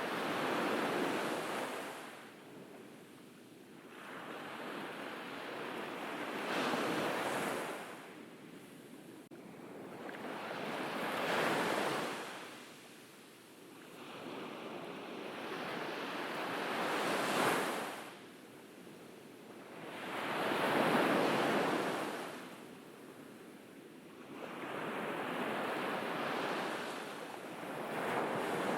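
Ocean waves breaking on a beach, each one swelling up and washing away every four to six seconds, about six in all.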